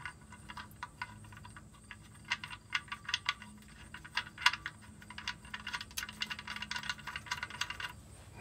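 Steel oil drain plug being spun by hand into the oil pan, giving an irregular run of small metallic clicks and ticks that stops shortly before the end, over a faint steady hum.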